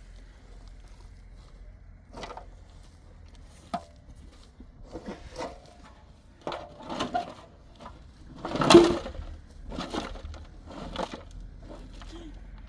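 A hand tool digging into hard earth: a series of irregular strikes and scrapes, the loudest and longest about two-thirds of the way through.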